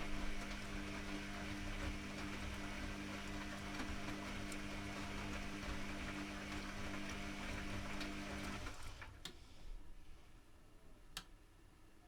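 Privileg Classic 30612 washing machine's motor running with a steady hum. It stops about eight and a half seconds in, and a couple of sharp clicks follow in the quieter pause.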